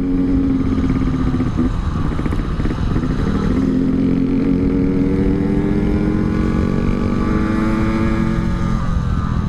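Yamaha RX-King two-stroke single with an aftermarket Altec C20 exhaust, running under way as the motorcycle is ridden. The engine note is steady, changes briefly about a second and a half in, then climbs slowly and eases off near the end.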